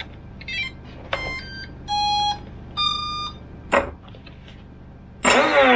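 Brushless motor's ESC playing its power-up tones through the motor windings as the lipo is connected: a quick run of short rising notes, then two longer steady beeps about a second apart, signalling that it has started and armed. A click follows, and near the end a louder sound sweeps down in pitch.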